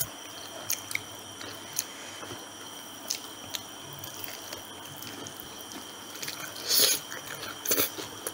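Close-up eating sounds of fried chicken being bitten and chewed by hand: scattered wet mouth clicks and small crunches, with two louder bites near the end.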